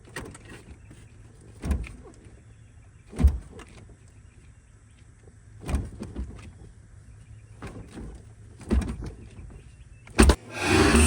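Factory steering wheel being jerked by hand off the steering column shaft without a puller: a series of short knocks one to two and a half seconds apart, then a sharp knock near the end as the wheel comes free, followed by a louder burst of noise.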